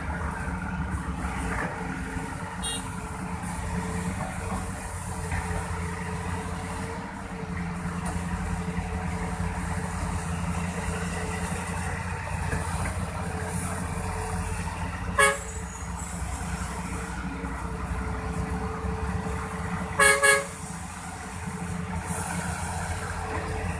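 Diesel engine of a Volvo 480DL excavator running steadily, with a short horn toot about 15 seconds in and a quick double toot about 20 seconds in.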